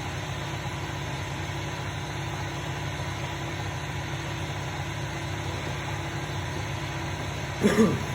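Steady machine hum: a low, even drone with faint constant tones, like an electric motor or fan running in a shop.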